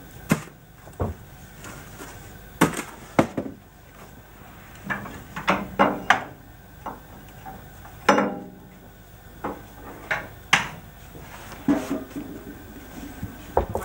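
A steel shovel scraping and knocking on a steam locomotive's smokebox and a metal barrow in irregular clanks and scrapes as the smokebox is shovelled clear of accumulated cinders and fly ash.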